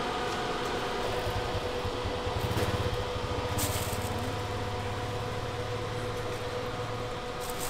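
A low engine hum comes in about a second in and holds until near the end, over a steady mechanical hum of several even tones. A short click comes about three and a half seconds in.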